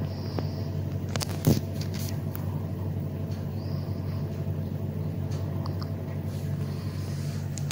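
Steady low background hum, with a few soft clicks and one sharper knock about a second and a half in.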